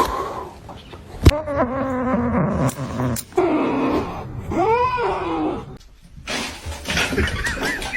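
A cat meowing several times: long, drawn-out meows that rise and fall in pitch. A sharp knock a little after a second in.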